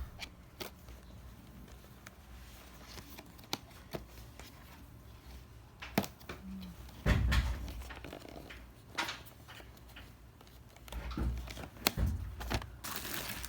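Scattered handling noises: light clicks and taps, with a few dull thumps about halfway through and again near the end.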